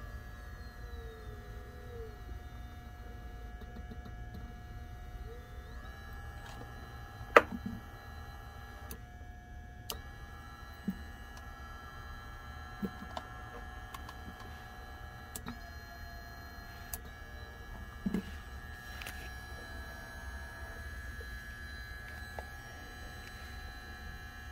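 Small 24 V brushless DC gear motor with a 60 mm square reduction gearbox running quietly: a low hum with a thin steady whine that shifts pitch a few times. Several short sharp clicks fall over it, the loudest about seven seconds in.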